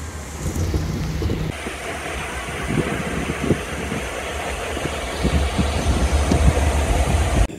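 Wind buffeting the microphone while riding in an open aerial tram gondola: a steady low rumble and hiss with scattered light knocks and rattles. It cuts off suddenly near the end.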